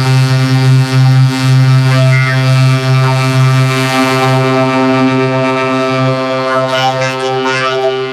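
Cartoon soundtrack audio put through a pitch-raising 'helium' effect: a loud, steady buzzing drone with many even overtones, with fainter shifting sounds above it.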